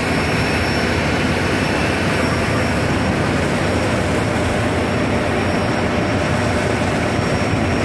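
Steady, loud drone of ship engines, with propeller wash churning between two ships close alongside.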